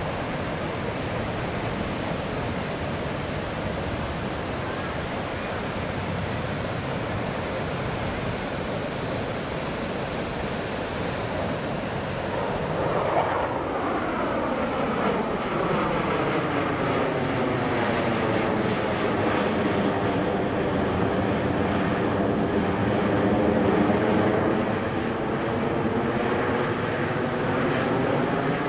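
Jet engine roar of a six-ship formation of USAF Thunderbirds F-16 Fighting Falcons. About halfway through the roar grows louder as the jets pass overhead, with a phasing sweep that falls in pitch and then levels off as they move away.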